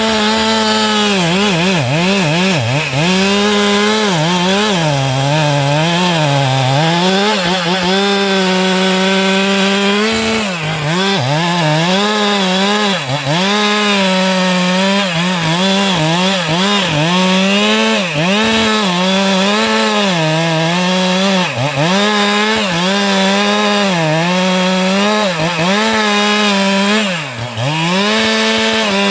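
Stihl MS 462 two-stroke chainsaw cutting through a sengon trunk, running near full throttle with its pitch repeatedly dipping under load and recovering as the chain bites. There is a deeper dip shortly before the end.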